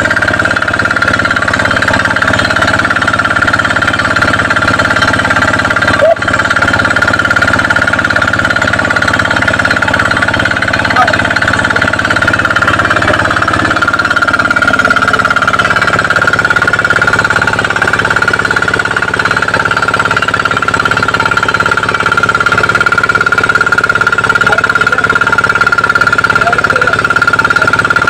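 Small portable diesel engine water pump running steadily under load, a loud drone with a steady high whine over it, drawing water from a tube well.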